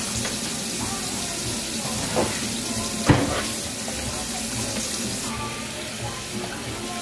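Kitchen tap running steadily into a stainless steel sink as things are rinsed under the stream. Two knocks about a second apart near the middle, the second sharper and louder.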